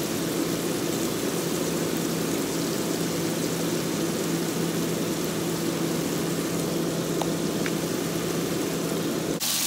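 Breaded chicken frying in a pot of hot oil: a steady hiss over a constant low hum. There are two faint clinks of a fork against the pot, and near the end the sizzle turns abruptly brighter and louder.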